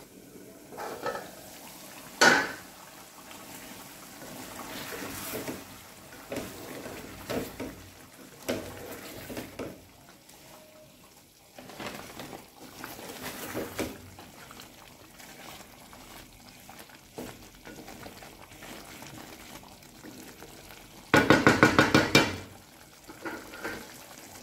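Wooden spatula stirring chicken pieces in thick simmering gravy in an aluminium pot, scraping and knocking against the metal; a sharp clank of the aluminium lid about two seconds in. Near the end, a quick, loud run of about a dozen rattling knocks on the pot.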